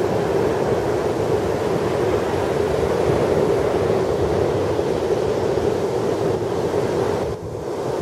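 Heavy Atlantic surf pounding the beach, large waves raised by offshore storms, as a steady dense roar of breaking water with wind buffeting the microphone. The roar dips briefly about seven seconds in.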